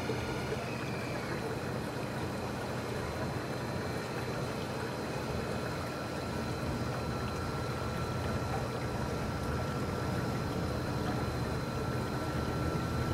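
Scale model dozer tugboat running under way: a thin steady motor whine over a constant rushing background.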